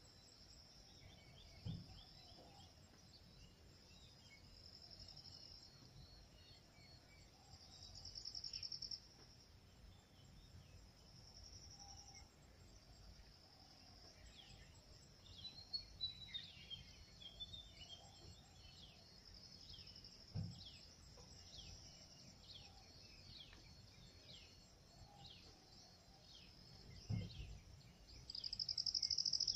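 Insects buzz in a steady high drone that swells louder several times: around 8 seconds, about 12 seconds, and near the end. From about halfway, birds chirp in short repeated calls, and there are a few soft low thumps.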